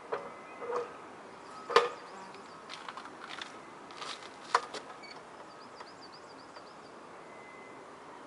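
Metal knocks and clanks from the Cembre Robokatta rail saw being handled with its engine off, as the petrol power head is set back onto the cutting carriage on the rail. There are several separate sharp knocks in the first five seconds, the loudest about two seconds in and again about four and a half seconds in, then only a faint steady hiss.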